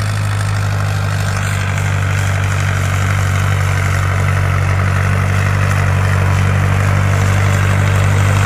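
Tractor diesel engine running at a steady speed while pulling a suhaga (plank leveller) across a field, a constant low drone that grows slightly louder.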